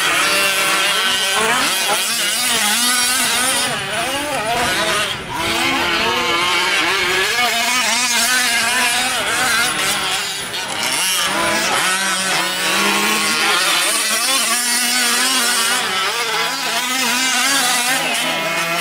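Several 1/5-scale gas RC trucks' small two-stroke engines running together, their pitch constantly rising and falling as the throttles open and close through the corners and jumps.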